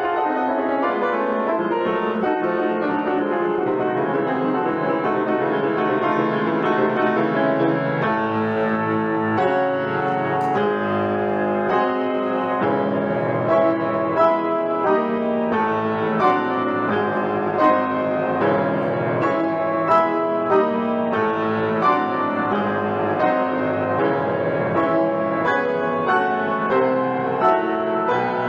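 Solo piano playing, with rich sustained chords and melody. From about eight seconds in, the notes are struck more distinctly, with accented notes coming a little under a second apart.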